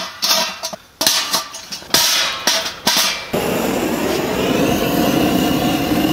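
Stainless-steel wood-burning stove parts knocking and clanking together in several sharp metallic hits. About three seconds in, a handheld butane torch lights and runs with a steady, even hiss.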